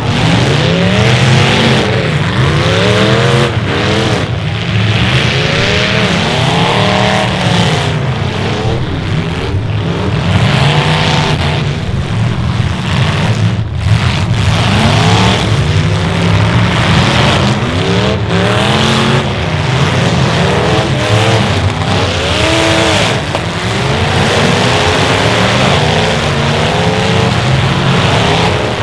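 Several demolition derby cars' engines revving hard and dropping back again and again, overlapping one another, as the cars ram and push each other in the mud.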